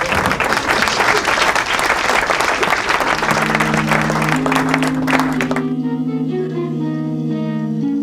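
Audience applauding, a dense clapping that cuts off suddenly about five and a half seconds in. Music with held notes comes in about three seconds in and carries on.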